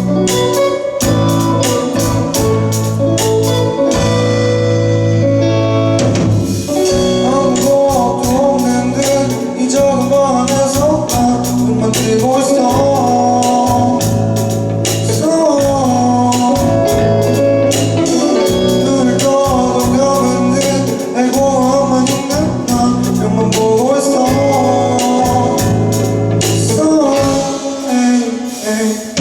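A live rock band playing a pop-rock song, with drums and a lead vocal over the instruments.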